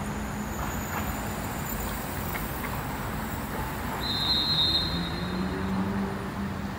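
Road traffic: engines running and passing, with a brief high squeal about four seconds in.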